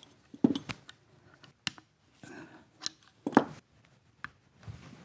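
Hand tools and loose metal parts clicking and clattering irregularly as a motorcycle engine's side cover and sprocket assembly are worked on, with the loudest clatter a little after three seconds in.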